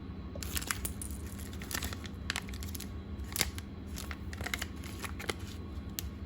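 Stretchy purple glitter slime being stretched and squished by hand, giving irregular sticky clicks and crackles over a steady low background hum.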